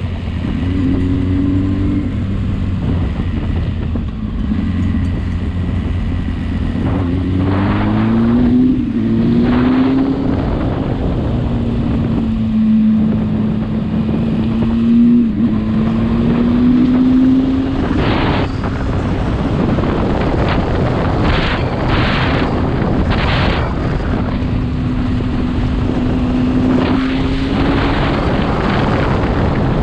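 Motorcycle engine running on the move, its pitch rising and falling as the bike speeds up and changes gear, under steady wind rush on the microphone. A few short louder gusts come in the second half.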